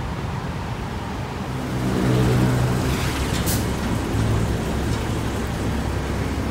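Engine of a red Mitsubishi city bus running close by, growing louder about two seconds in and then holding a steady hum. A short hiss comes about halfway through.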